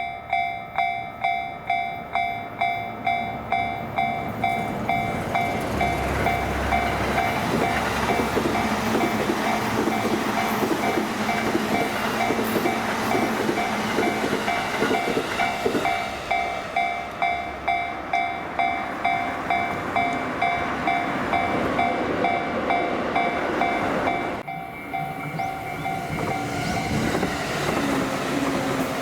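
Japanese level-crossing warning bell ringing about twice a second while electric trains pass over the crossing, wheels clacking over rail joints; the bell stops near the end as the rumble of passing trains carries on.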